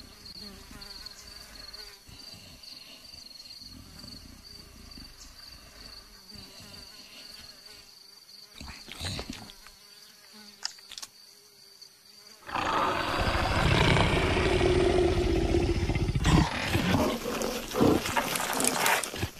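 Cartoon sound effects: a faint high insect buzz over quiet wildlife ambience, then about twelve seconds in a sudden, much louder stretch of a big cat growling.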